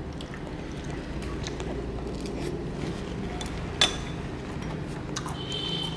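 Chopsticks and a spoon clicking against ceramic bowls while eating, with one sharp clink a little under four seconds in and a short ringing clink near the end, over a steady low background hum.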